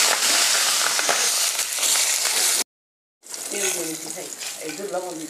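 Hot oil sizzling loudly around a large rohu fish head frying in a wok. About two and a half seconds in the sound cuts out completely for half a second, then comes back as a quieter sizzle with a voice under it.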